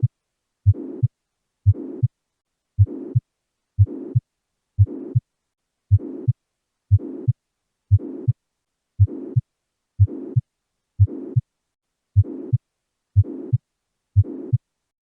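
Heart sounds with a pathological murmur at about one beat a second. Each beat is a sharp first heart sound, then a rough murmur that holds level all the way to a sharp second heart sound: a systolic murmur.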